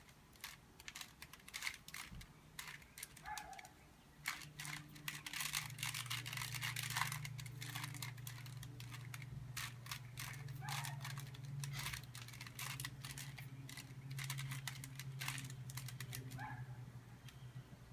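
Plastic Rubik's cube layers being twisted by hand: quick, irregular clicking and clacking. A low steady hum starts about five seconds in.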